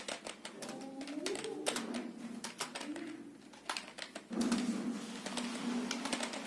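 Computer keyboard keys clacking at an uneven typing pace during a touch-typing test, with a short pause about three seconds in.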